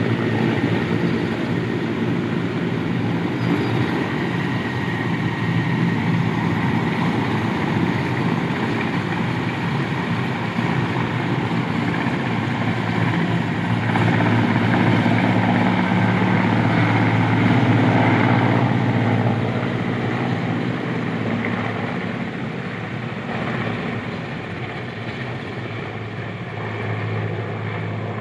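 Mil Mi-17-series military helicopter in flight just after lifting off, its main rotor and turbine engines running steadily; the sound swells about halfway through, then fades as it flies off.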